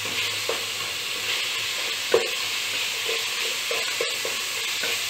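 Mutton pieces frying in oil in an aluminium pot, sizzling steadily as they are browned (bhuna) for a roasted aroma. A wooden spatula stirs them, knocking and scraping against the pot a few times, loudest about two seconds in.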